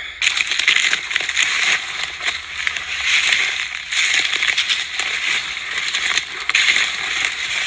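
Dry brush crunching and rustling underfoot and against the body while walking through it: a dense, steady rustle full of small snaps and crackles.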